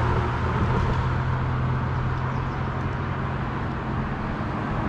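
Car driving at a steady speed: a steady low engine hum over road and tyre noise.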